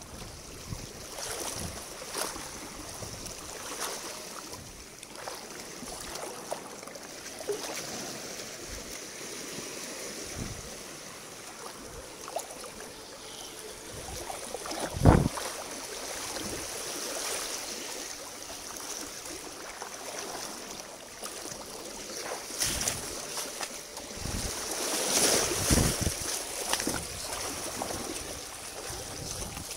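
Shallow rocky stream water sloshing and splashing as someone wades and pokes among the stones, with small knocks and clicks throughout. A single sharp knock comes about halfway through, and the splashing grows louder near the end.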